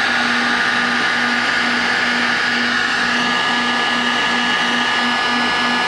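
Handheld heat gun running: a steady rushing air hiss with a high, even motor whine, as it blows hot air onto heat-shrink tubing.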